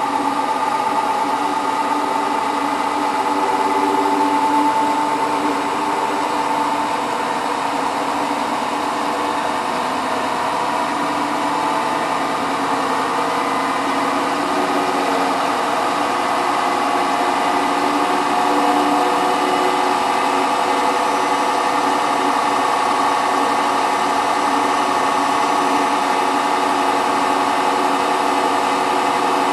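Hotpoint WT960 washing machine's drum spinning at high speed in its final 1600 rpm spin, a steady motor whine and hum.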